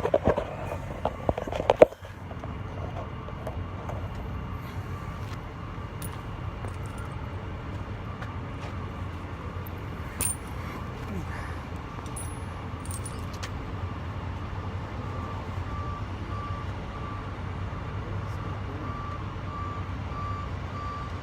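Heavy truck's engine idling with a steady low rumble. Metal tire chain links clatter in the first two seconds. A backup alarm beeps steadily through the second half.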